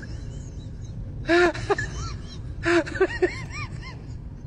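A person's voice in short bursts: quick cries that rise and fall in pitch, loudest about a second and a half in and again near three seconds, over a steady low rumble.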